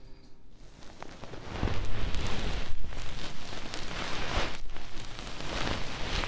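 Hands rubbing over a binaural dummy-ear microphone and its silicone ears, a close, rain-like rustling that swells and fades in slow strokes.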